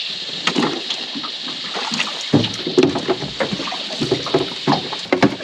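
Small aluminium boat on the water: irregular knocks, clatter and low thuds of gear being handled aboard, growing busier about two seconds in, with water sloshing against the hull over a steady high hiss.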